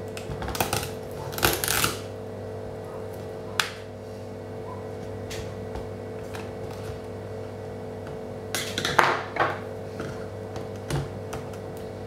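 Scattered clicks and scrapes of a small screwdriver and plastic tool working on an opened laptop's chassis and cables, busiest around a second and a half in and again around nine seconds in, over a steady hum.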